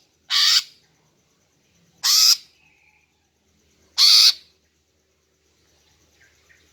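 Female greater green leafbird (cucak ijo) giving three harsh, rasping calls about two seconds apart, each about half a second long, followed by a few faint short chirps near the end.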